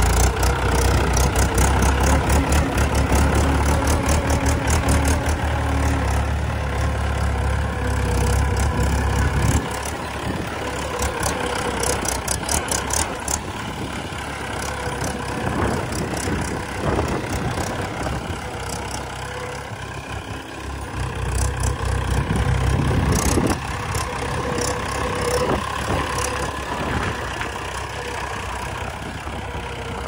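Mahindra 475 DI tractor's four-cylinder diesel engine running as it pulls a trolley loaded with soil. It is loudest for about the first ten seconds, then drops in level, with a short rise near three-quarters of the way through.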